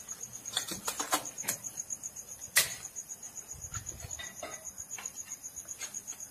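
A cricket chirping in a fast, even, pulsing trill, with scattered sharp clicks and knocks over it; the loudest knock comes about two and a half seconds in.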